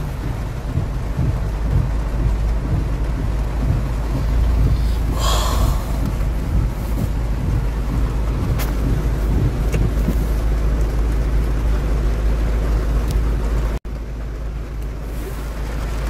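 Heavy rain pounding on a car's roof and windshield, heard from inside the cabin over a steady low rumble of the car on the wet road. A brief louder swish comes about five seconds in, and the sound cuts out for an instant near the end.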